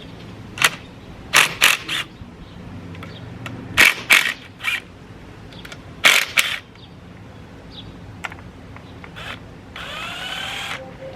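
Sharp metallic clicks and clacks in short groups of two to four, from hand tools working the 8 mm bolts of a Honda Grom's engine side cover as they are loosened. A short rising whir comes near the end.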